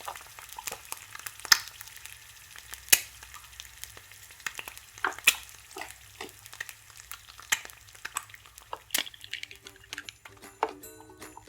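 Plastic toy cookware being handled and stirred: irregular sharp clicks and light scrapes, a few of them louder taps. Jingly background music starts near the end.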